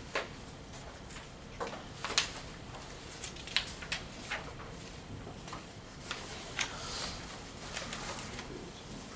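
Scattered short taps, scratches and rustles of pens on paper and handled worksheets over steady room tone, irregular and unhurried.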